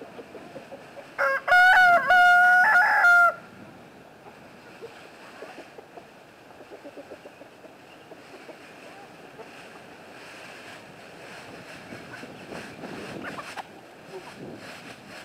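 A rooster crowing once, about a second in, for about two seconds. After the crow come quieter rustling and the clucking of the flock.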